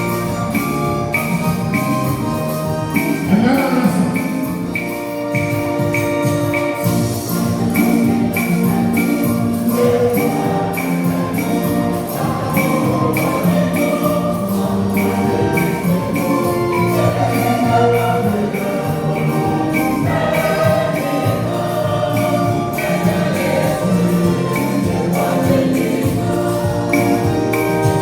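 Church music: voices singing over instruments with a steady beat.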